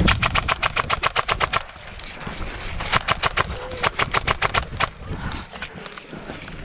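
Airsoft gun firing full-auto in three rapid bursts of about a dozen shots a second. The first burst lasts about a second and a half, the second is short and comes about three seconds in, and the third follows soon after.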